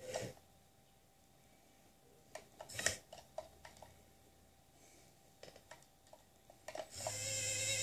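Small electric hoist motor of a model container gantry crane starting to whine steadily about seven seconds in as it lifts a container off a truck. Before it come scattered light clicks and ticks from the model's mechanism.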